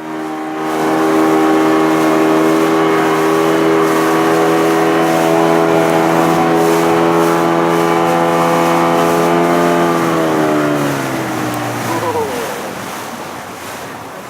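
Motorboat engine running at a steady speed, then slowing, its pitch sliding down from about ten seconds in until it dies away, leaving a rushing noise of wind and water.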